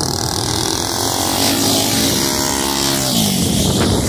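Racing lawnmower engines of the open modified class running hard as the karts go by. About three seconds in, one engine's pitch falls.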